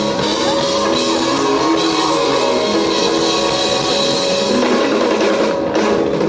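Rock band playing live: drum kit and guitars in a loud, dense instrumental passage, without singing.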